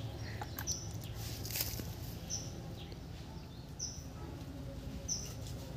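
A bird giving a short high chirp four times, evenly spaced about a second and a half apart, over quiet outdoor ambience with a few faint rustles.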